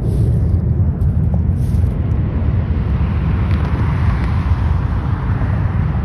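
Wind buffeting the microphone with a steady low rumble, over road traffic noise; a car swells past about halfway through.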